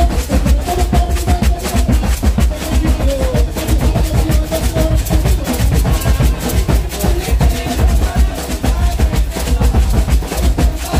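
Coco music: drums and percussion playing a dense, steady beat with heavy low drum strokes, and a wavering melody above.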